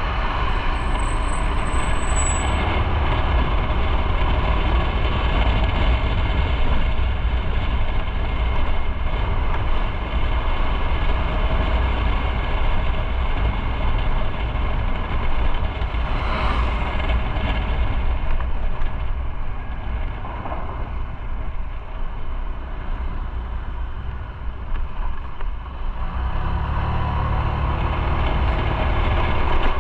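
Motorcycle on the move, with steady engine and road noise. It drops for a few seconds about twenty seconds in, then rises again near the end as the bike picks up.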